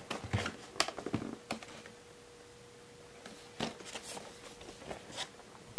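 Hands turning over a boxed doll's cardboard-and-plastic packaging: a scatter of light clicks and crinkles, thickest in the first second and a half, with a few more later on.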